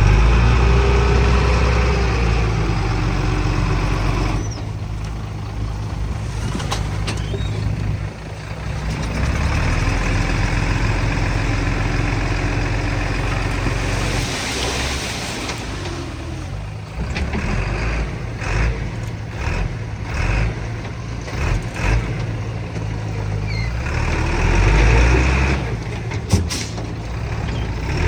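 Heavy diesel machinery engines running and changing load, with a hiss about halfway through and a few sharp knocks near the end.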